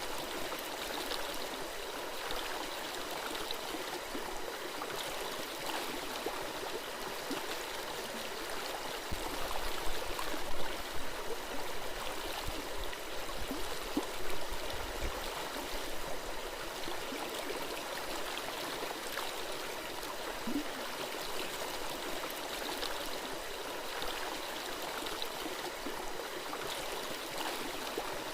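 Small stream flowing and gurgling steadily. A low rumble and a few louder surges come in about nine to fifteen seconds in.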